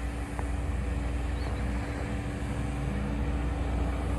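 A vehicle engine idling, a steady hum over a low rumble.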